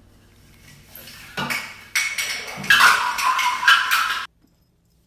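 A white artificial Christmas tree with a cat in it toppling over, crashing and clattering onto the floor with its ornaments. The knocks start about a second and a half in, grow into a loud clatter, and cut off abruptly near the end.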